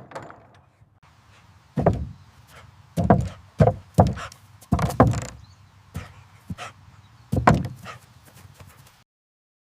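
A string of about nine thumps and knocks from a dog running over agility equipment such as the teeter board. The sound cuts off dead about nine seconds in.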